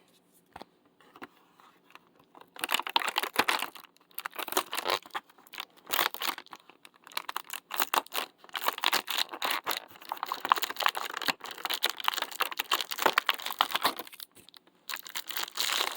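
Advent calendar packaging being torn open and crinkled by hand: a dense run of crackling and tearing that starts a couple of seconds in, with brief pauses, and stops shortly before the end.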